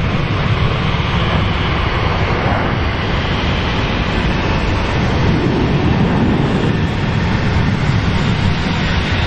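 Jet engines of an Airbus A340 running at low taxi power: a steady rumble with a hiss over it.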